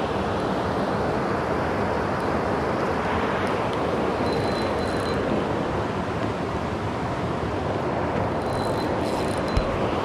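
Rushing river water running steadily over shallow riffles and rocks. A faint high tone comes twice, about four and eight seconds in, and there is a brief bump just before the end.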